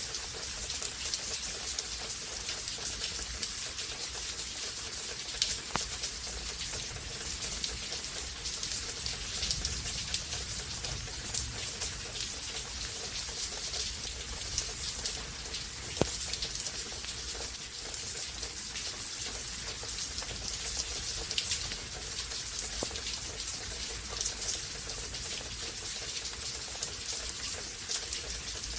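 Steady rainfall with a continuous hiss and many individual drops ticking and splashing on surfaces, a few louder drops among them.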